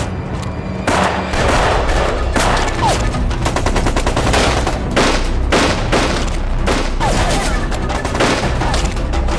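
A heavy gunfight: many gunshots in quick succession, pistol shots among them, starting about a second in.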